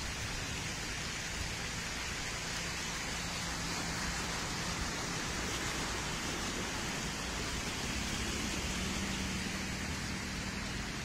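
Steady rain making an even hiss, heard from a car, with a faint low hum underneath.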